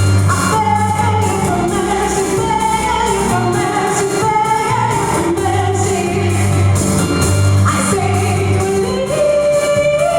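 A woman singing a Russian pop-rock song with a band behind her: a steady drum beat and a pulsing bass under a held, sustained vocal melody.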